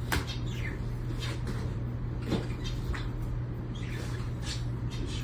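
Dogs waiting to be fed: scattered light clicks and a few brief, high, falling whines over a steady low hum.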